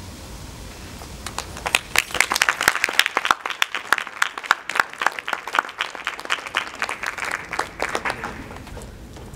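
Audience applause that starts about a second in, swells quickly to a peak, then tapers off shortly before the end.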